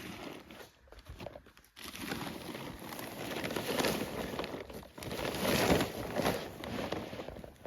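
Tent fabric rustling and crinkling in irregular bursts as it is handled, with the loudest bursts in the middle of the stretch.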